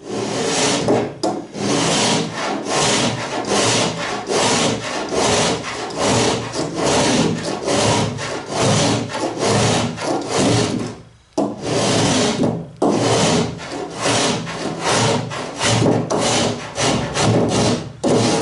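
Spokeshave shaving the joined plywood edges at a wooden boat's bow, in quick repeated strokes of about two a second, to level the edge across. There is a brief pause about eleven seconds in.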